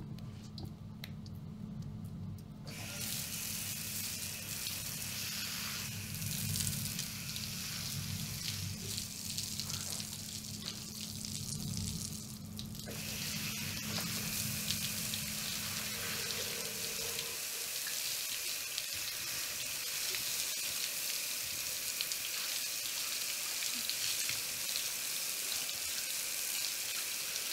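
Shower heads running, water spraying onto tiles and bodies in a tiled communal shower. The hiss starts about three seconds in and gets fuller about halfway. A low steady hum underneath stops about two-thirds of the way through.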